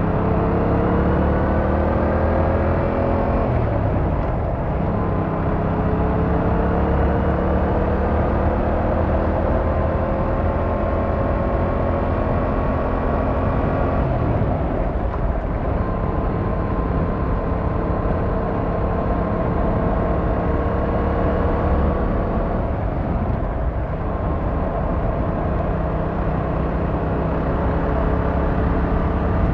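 Yamaha MT-07's 689cc inline-twin engine pulling under throttle, its pitch climbing steadily and dropping sharply at each of three upshifts: one early on, one around halfway and one about three quarters of the way through.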